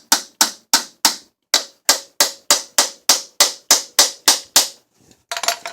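Ratchet wrench clicking in a steady rhythm, about three sharp clicks a second, stopping shortly before a brief clatter near the end.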